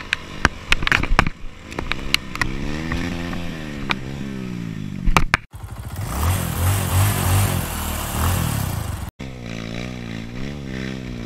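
Yamaha Serow 250's single-cylinder four-stroke engine revving up and down as the bike rides a rough dirt trail, with sharp knocks and clatter over the first couple of seconds. The sound breaks off abruptly twice, about five and nine seconds in.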